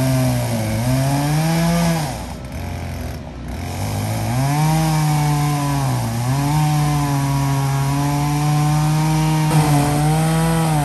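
Chainsaw cutting into the base of a leaning tree trunk. It runs at full throttle, drops off for a couple of seconds about two seconds in, then revs back up and holds steady.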